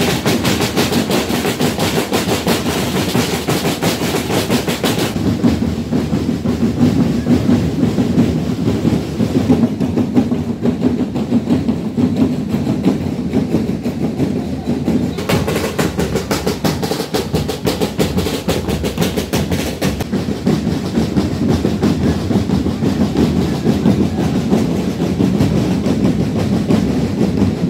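Parade drum band of snare and bass drums playing a fast, unbroken beat, with fuller, brighter spells near the start and again around the middle.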